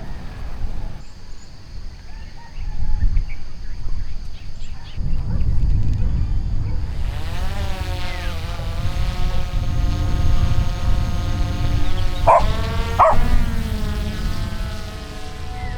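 Wind rumbling on the microphone, joined about seven seconds in by a long, wavering, high-pitched whine that bends in pitch and jumps sharply twice near the end.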